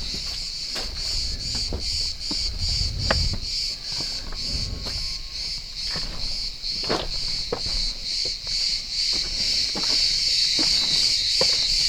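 A chorus of cicadas buzzing in a high, pulsing drone, about three pulses a second, growing louder and steadier toward the end, with a few soft clicks and some low wind rumble on the microphone in the first seconds.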